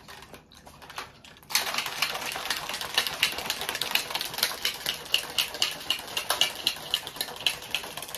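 Plastic shaker bottle of pre-workout drink being shaken hard, a fast, steady rattle that starts about a second and a half in.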